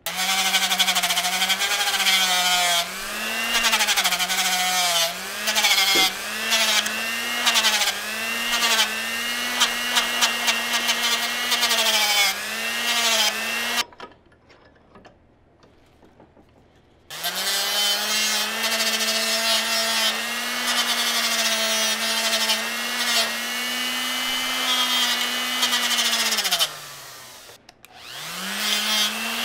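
Handheld high-speed rotary tool with an abrasive wheel running and grinding the steel jaw of an antique W&B railroad wrench clamped in a vise. Its whine dips in pitch each time the wheel bites and recovers as it eases off. The tool stops for about three seconds midway, runs again, then winds down near the end and starts back up.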